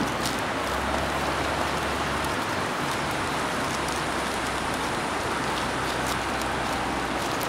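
Steady rushing of flowing river water, an even hiss that doesn't change.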